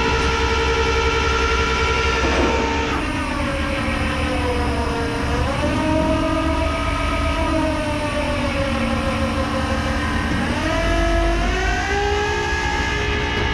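Tow truck's engine-driven hydraulics running under load with a strong whine. The pitch drops about three seconds in, holds lower, and climbs again near the end as the engine speed changes while the lift raises the truck.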